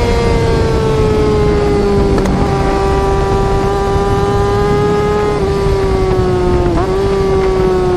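Yamaha R6 motorcycle engine sound held at high revs, a loud high-pitched scream whose pitch sags slowly, with a brief dip and recovery near the end, over a steady low rumble.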